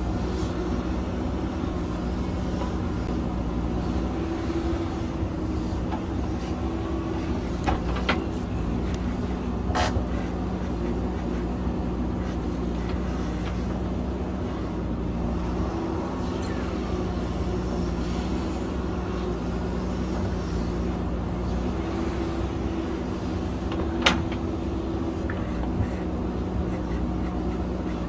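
JCB backhoe loader's diesel engine running steadily as the machine works loose rock. There are a few sharp knocks of the bucket and stone, the loudest near the end.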